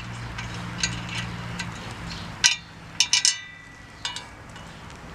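Metal parts clinking and tapping as bolts are taken out of the front of a lawn tractor: a few sharp clinks, the loudest cluster about three seconds in ringing briefly. A low steady hum runs underneath and fades about two seconds in.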